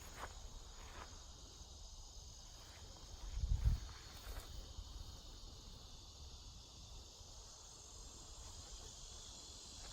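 Steady high-pitched chorus of insects in the woods, with one low thump about three and a half seconds in and a few faint clicks near the start.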